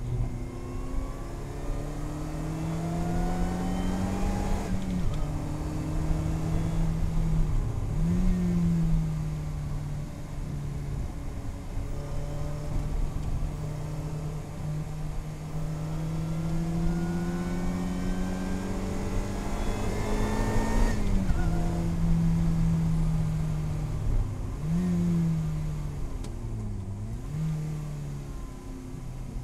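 Lotus Elise Cup 250's supercharged four-cylinder engine heard from inside the cabin on a track lap: the revs climb in long pulls and break off sharply about five and twenty-one seconds in, then dip and flare several times near the end as it brakes and downshifts.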